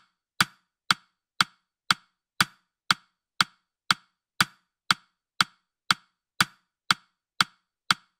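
Countdown timer's tick sound effect: short, sharp, wood-block-like clicks at an even two ticks a second.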